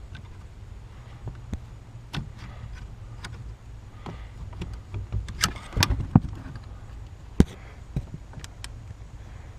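Irregular clicks and knocks of screwdrivers working a plastic electrical connector on a brake light switch under a car's dash, over a low steady hum. A quick run of sharper clicks comes about halfway through, and one sharp knock about two seconds later.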